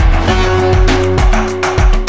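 Background music with a steady drum beat, about two beats a second, over held bass and plucked notes.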